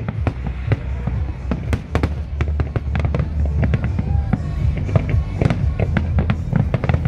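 Fireworks going off in quick, irregular succession: many sharp bangs and crackles. A music soundtrack with a held deep bass plays beneath them.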